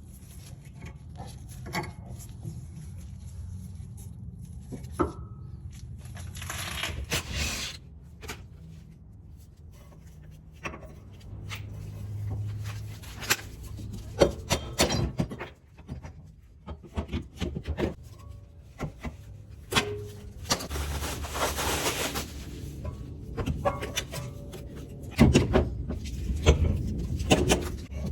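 Scattered knocks and clicks of work on a car, over a low steady hum, with two longer rushing noises about seven and twenty-one seconds in.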